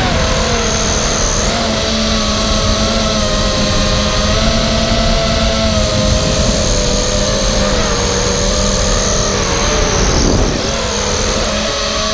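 Brushless motors and propellers of a Charpu 210 FPV racing quadcopter, heard from its onboard GoPro over wind rush: a steady multi-tone buzz whose pitch shifts with the throttle. About ten seconds in the pitch briefly dips and then climbs back.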